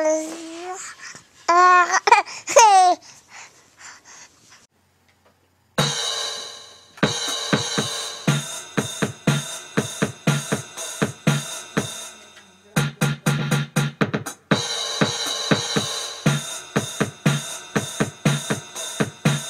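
A baby laughs and squeals for the first few seconds. After a short quiet, drum-backed intro music with a steady beat starts about six seconds in and runs on.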